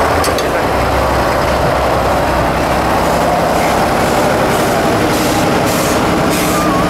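Tatra 815 8x8 trial truck's diesel engine running under load as the truck crawls over rough ground, a steady heavy drone. A run of short, evenly repeated hisses comes in over it in the last couple of seconds.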